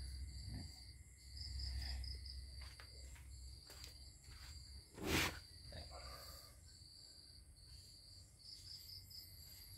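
Faint, steady chirping of insects, likely crickets, in the background, with one short sharp noise about five seconds in.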